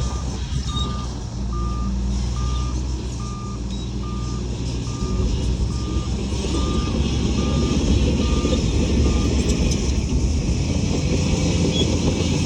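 A heavy machine's reverse alarm beeps steadily, a little more than once a second, and stops about nine seconds in. Under it a diesel engine rumbles, and it grows louder from about halfway through.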